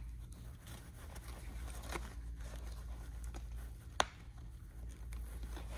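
Hands working nylon pack webbing with faint rustling, and two small clicks, the second about four seconds in and the louder, as a plastic gatekeeper strap hook is pressed and hooked onto the strap.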